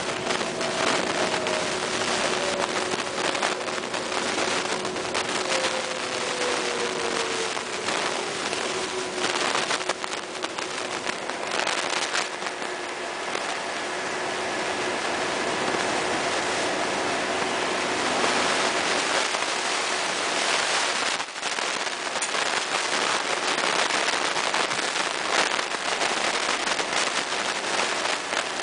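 MAN Lions City Hybrid bus heard from inside as it manoeuvres on electric drive: a faint tram-like whine falls slowly in pitch over the first several seconds. About eleven seconds in, the diesel engine starts up to recharge the hybrid energy store. Heavy crackling from a faulty microphone runs underneath.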